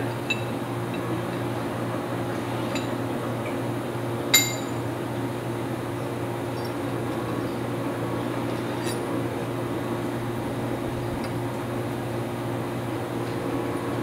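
Steel die plates and small parts clinking against each other as they are handled and fitted together, a few scattered clinks with one sharper one about four seconds in. A steady machine hum runs underneath.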